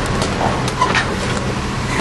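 Off-road 4x4 rig's engine running steadily as it crawls over a rocky trail, with a few sharp knocks from about a quarter second to a second and a half in.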